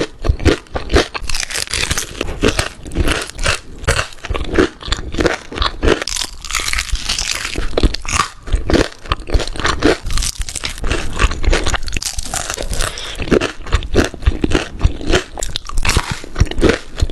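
Close-miked chewing of crunchy food: a continuous run of loud, crackly crunches, several a second, with the wet sounds of mouth and teeth.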